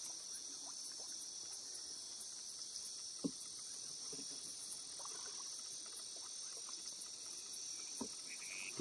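Steady, high-pitched chorus of night insects chirring, with a single sharp knock about three seconds in and a softer one near the end.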